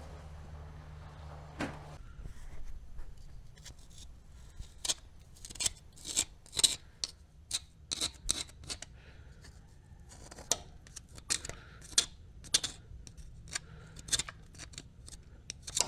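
Irregular sharp clicks from hand tools being worked, several clusters of a few clicks a second. A low steady hum runs under the first two seconds, then stops.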